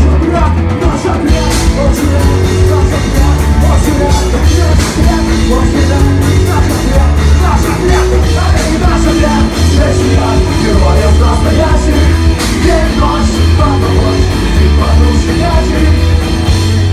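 Loud punk rock music: a full band with a pounding drum kit and shouted, yelled vocals.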